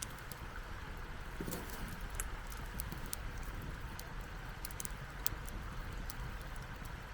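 Wood campfire burning, crackling with scattered sharp pops over a steady low rumble.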